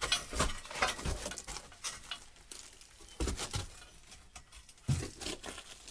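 Bursts of knocking, clattering and small pattering debris as the temporary wooden arch former is worked loose and taken down from under a freshly built stone arch, in three clusters: at the start, about three seconds in, and about five seconds in.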